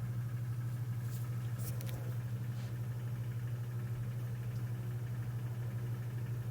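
Washing machine running with a steady low hum, while water stays standing in it instead of draining.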